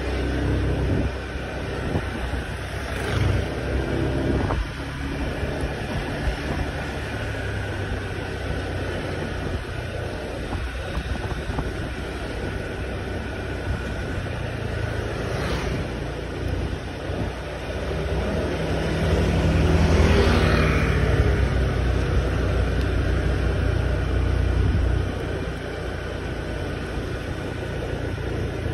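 Honda motor scooter's engine running while riding along a town street, with wind noise on the microphone. It grows louder for several seconds a little past the middle.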